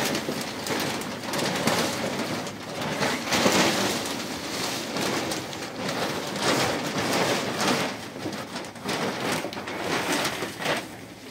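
A large sheet of clear plastic rustling and crinkling as it is shaken out and spread across a floor, in irregular surges.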